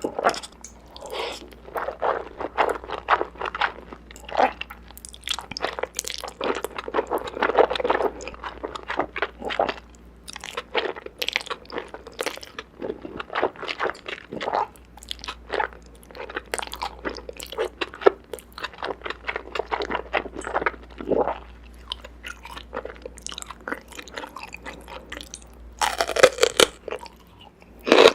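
Close-miked eating: a mouth crunching and chewing through a meal of noodles, green onion and enoki mushrooms. The bites and chews come as many short, irregular crunches, with a denser run of them near the end.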